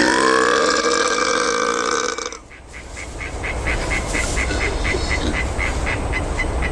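A long burp lasting about two and a half seconds that stops abruptly. It is followed by a steady run of short high-pitched peeps, about four or five a second.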